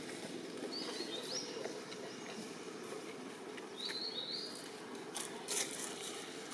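Outdoor ambience with a steady low background hum, over which an animal gives two pairs of short, high chirps, about a second in and again near four seconds. A few sharp clicks follow near the end.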